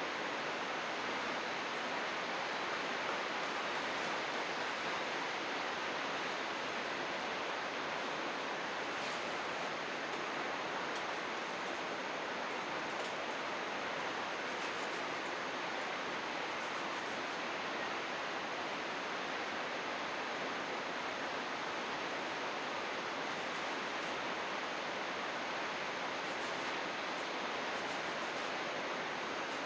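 Steady rush of flowing river water, an even, unbroken hiss of running water.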